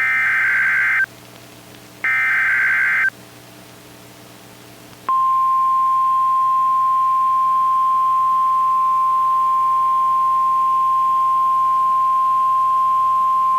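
NOAA Weather Radio alert opening for a tornado warning. The last two bursts of the SAME digital header screech for about a second each, two seconds apart. About five seconds in, the steady single-pitch 1050 Hz weather radio warning alarm tone starts and holds.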